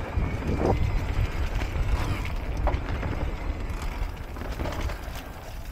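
Electric mountain bike ridden fast down a dirt forest trail: a steady low rumble from the tyres on the dirt and air rushing past the microphone, with the bike rattling and knocking over bumps. It grows quieter near the end as the bike slows.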